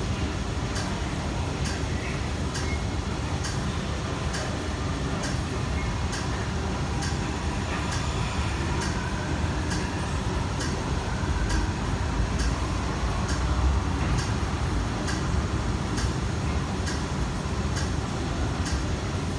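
Steady low rumble of a stationary MTR South Island Line S-Train standing at an underground platform, with a light, regular tick about every three-quarters of a second.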